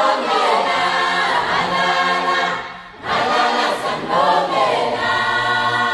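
An unaccompanied choir singing a Zulu-language song with 'halala' phrases, in full harmony. Two long sung phrases are split by a short breath about three seconds in.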